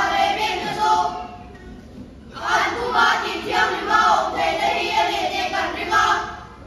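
Children's choir singing. One phrase ends about a second in, there is a short pause, and then a longer phrase runs until near the end.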